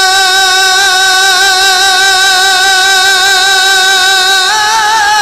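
A man's voice, amplified through a microphone, holds one long steady note in a Sufi devotional song. About four and a half seconds in he breaks into a wavering, gliding ornament.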